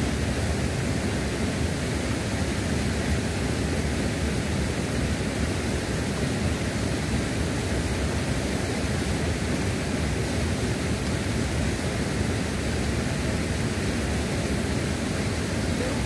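Steady rushing of waterfall and river water, an even noise with no breaks.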